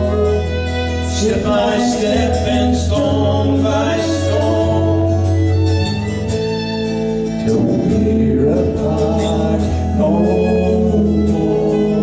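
Live folk music: a singer at the microphone with a fiddle playing alongside, over a low held bass note that changes a few times.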